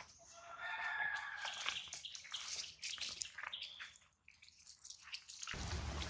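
A drawn-out, pitched animal call begins about half a second in and lasts over a second, among small clicks and rustling. A low rumble comes in shortly before the end.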